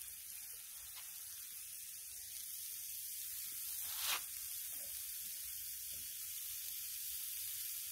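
Balls of ground beef sizzling on a hot Blackstone flat-top griddle, a steady hiss. About four seconds in, a short, louder burst comes as another ball of meat goes down on the steel.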